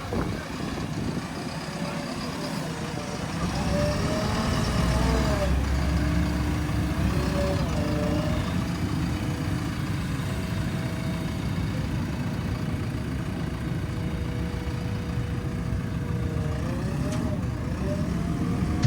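Heavy vehicle engines running with a steady low rumble, getting louder a few seconds in, their pitch rising and falling as they rev.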